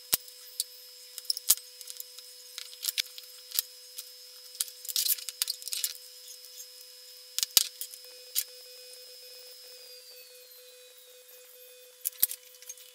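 Scattered small clicks and taps as a soldering iron, diode leads and a small circuit board are handled on a tabletop, with a faint crackle while solder is melted onto the board about eight seconds in. A faint steady hum runs underneath.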